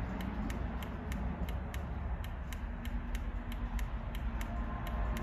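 Quick, even run of small sharp clicks, about three or four a second, from the push-button on an iDatalink BLADE-AL remote-start module being tapped over and over to step through its programming menu, over a faint steady hum.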